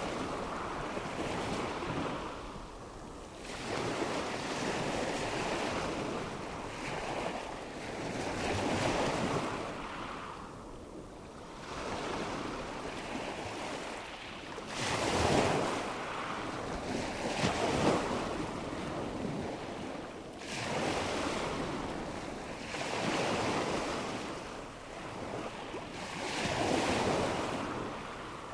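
Ocean surf: waves rolling in one after another, each a rush of noise that swells and fades every few seconds, with the biggest surges about halfway through.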